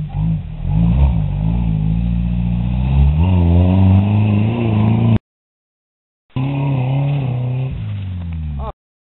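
Engines of lifted off-road pickup trucks running and revving on dirt, the pitch rising and falling. The sound cuts out for about a second just past the middle, then an engine runs again and cuts off shortly before the end.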